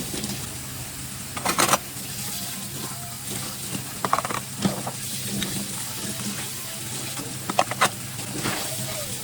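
Dishes and kitchen utensils being handled while cleaning up: a few short clusters of clinks and knocks over a steady low hum.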